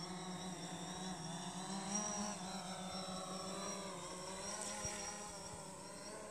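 DJI Phantom 4 quadcopter's propellers humming steadily in flight, the pitch wavering up and down as the motor speeds change.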